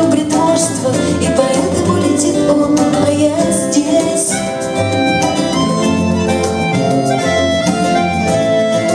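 Live folk-rock band playing: a woman singing over acoustic guitars, bass guitar and bayan. About four to five seconds in the voice gives way to an instrumental passage of held melody notes from the bayan and violin.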